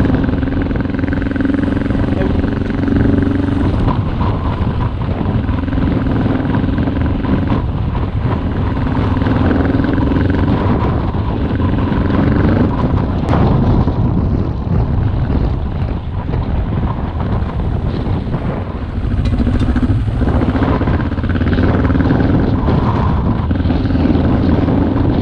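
Dual-sport motorcycle engine running while riding, its steady note coming and going several times as the throttle is opened and eased, over constant wind rumble on the microphone.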